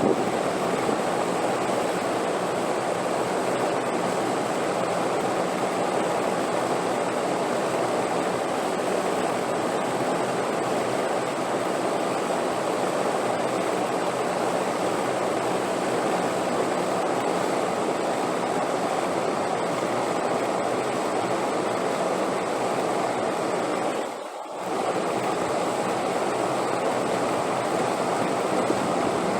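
Steady rushing wind noise, even and unbroken, that dips briefly about 24 seconds in.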